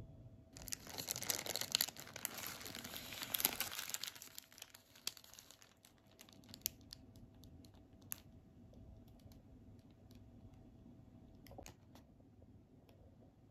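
Paper burger wrapper crinkling as the wrapped burger is handled, loudest for the first few seconds. After that, a few sparse light clicks and rustles.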